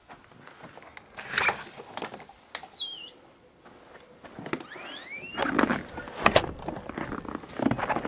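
A door squeaking on its hinges: short falling squeals about three seconds in and a rising squeal about five seconds in, followed by a few sharp knocks and thuds.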